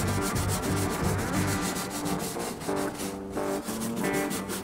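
A stiff hand brush scrubbing a corroded aluminium aircraft panel wet with foaming degreaser, in quick back-and-forth strokes several times a second. Background music plays under it.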